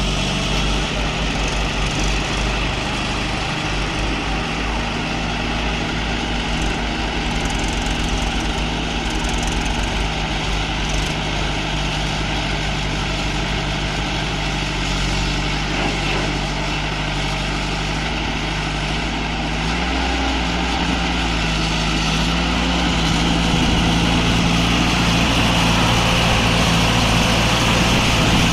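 Diesel engines of heavy earthmoving machinery running steadily. The engine note shifts about twenty seconds in and grows a little louder after that.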